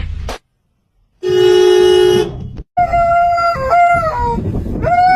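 A steady horn-like tone held for about a second, then after a short pause a long, wavering, howl-like call that bends in pitch.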